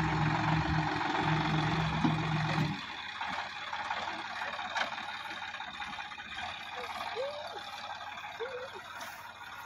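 Sonalika DI 60 tractor's diesel engine running steadily under load, then its sound drops away abruptly about three seconds in, leaving only faint background with a few short chirps.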